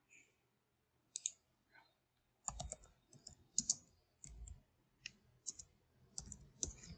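Faint computer keyboard keystrokes as a short command is typed: a couple of clicks about a second in, then an uneven run of separate key clicks from about two and a half seconds in.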